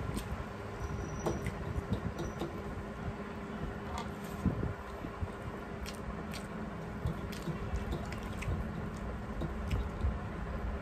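Eating by hand: wet squishing as rice is mixed with jute-leaf curry on metal plates, with scattered light clicks of fingers against the plates and chewing.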